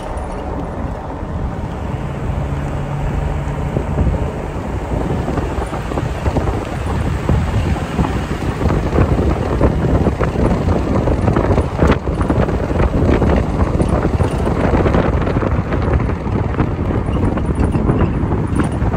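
Wind buffeting a phone microphone held out of the window of a moving van, a steady loud rumble and hiss mixed with road noise.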